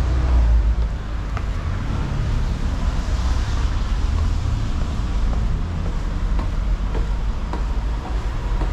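Low, steady rumble of road traffic, with a few faint footsteps on concrete stairs.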